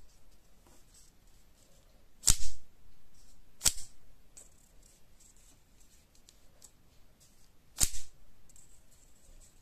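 Folded paper clapper snapped with a flick of the wrist, giving three sharp loud cracks: about two seconds in, again a second and a half later, and once more near the end, with faint paper rustling between.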